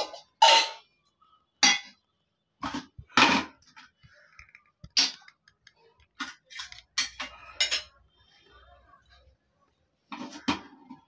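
Metal pots, bowls and plates handled and set down on a cement floor: about a dozen irregular clinks and knocks, some ringing briefly.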